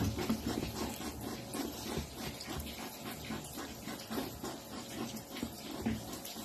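Two hedgehogs eating raw meat from a steel bowl: a continuous run of small, irregular wet chewing and smacking sounds.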